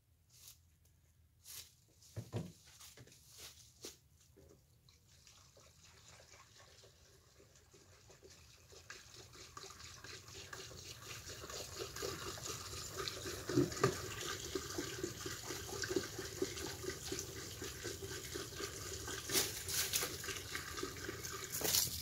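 Fuel pouring from a jug through a funnel into a hot-water pressure washer's tank, a steady glugging pour that begins a few seconds in and grows louder, then holds.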